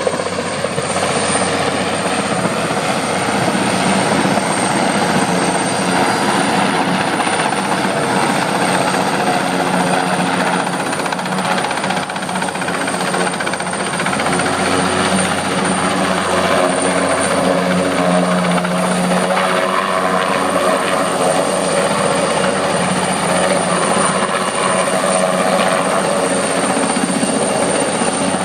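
Helicopter running steadily: a loud, continuous mix of rotor and engine noise with a thin high whine over it.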